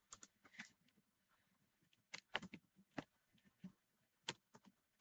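Faint, scattered clicks of a computer mouse and keyboard, about a dozen irregular ticks against near silence.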